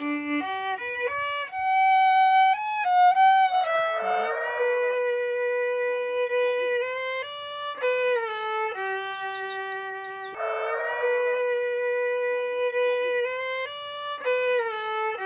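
Solo violin playing a slow, sad melody one note at a time, with long held notes.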